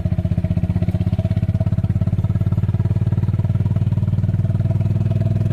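A farm cart's small engine running steadily, with a fast, even putter.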